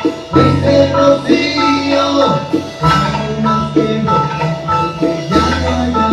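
Salsa band music: an instrumental passage with held bass notes under a bright melodic line.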